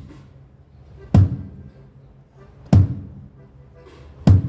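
A low drum of a drum kit struck alone three times, about a second and a half apart, each hit ringing low: a single drum being sounded over and over for a soundcheck.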